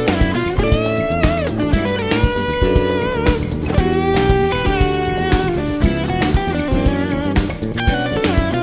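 Background music: electric guitar playing bent, sustained lead notes over bass and a steady beat, in a bluesy style.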